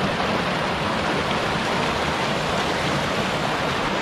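Steady, even rush of water from a mountain stream tumbling over rocks.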